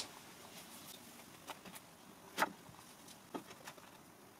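Faint handling noises as clothesline cord is worked against a wooden frame: a few soft taps and rustles, one louder about halfway through.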